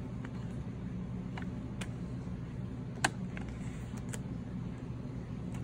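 Paper planner dividers and pages being handled and swapped in a planner: a handful of light clicks and taps, one sharper click about three seconds in, over a steady low hum.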